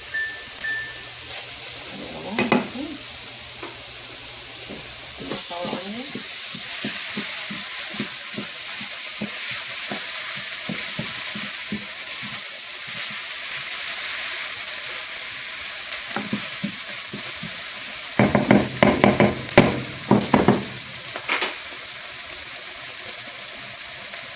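Beef and onions sizzling in hot oil in a pan, a steady hiss that gets louder about five seconds in. A utensil scrapes and clatters against the pan as the food is stirred, most busily for a few seconds near the end.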